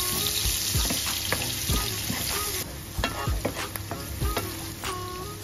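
Chopped garlic and onion sizzling in hot oil in a nonstick frying pan, stirred with a wooden spoon that knocks and scrapes against the pan now and then. The sizzle drops somewhat about halfway through.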